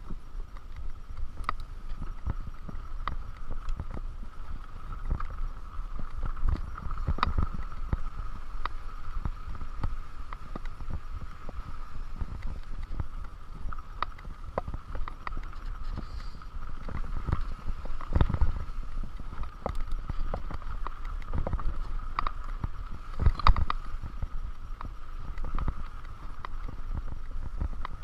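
Mountain bike ridden over rough, rocky dirt singletrack: the tyres roll with a steady hum and low rumble while the bike rattles and knocks over bumps and stones, with a few harder jolts.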